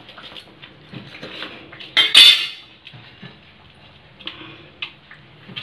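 Metal spatula scraping and tapping on a steel plate while a crisp fried flatbread is broken into pieces, with one loud metal clatter about two seconds in.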